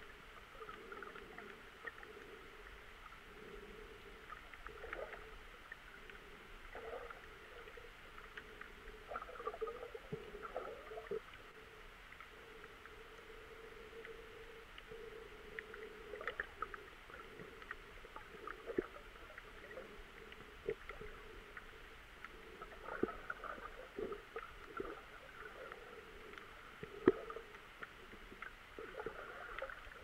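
Muffled underwater sound from a camera held under the sea: a steady dull hum with scattered short clicks and knocks, the loudest about 27 seconds in.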